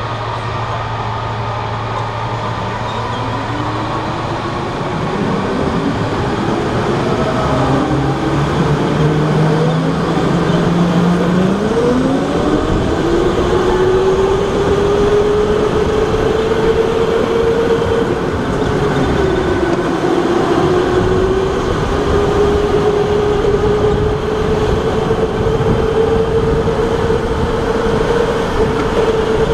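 Electric go-kart motor whining, rising in pitch as the kart pulls away and gathers speed, then holding a steady high whine at speed with a short dip in pitch about two-thirds of the way through. Underneath is a steady rush of tyre and track noise, with other karts' motors also rising early on.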